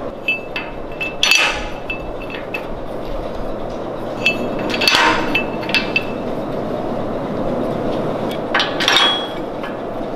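Steel fixture stops and clamp bolts clinking and knocking against a steel fixture weld table as they are set into its holes: a few ringing metal clinks, the loudest about a second and a half in, around five seconds in and near nine seconds in, over a steady hum.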